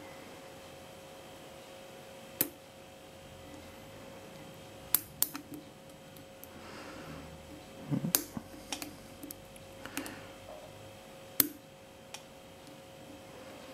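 Lock picking in an Abus Titalium 90/50, a six-pin padlock with spool pins: a hook pick and tension wrench working in the keyway. Scattered sharp metallic clicks, several close together about eight seconds in, with faint scraping of the pick between them.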